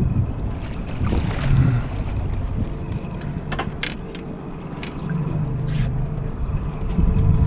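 Wind buffeting the microphone over the rumble of a fishing boat on the water, with a few sharp handling knocks around the middle as the landing net is brought aboard. A low steady hum joins about five seconds in.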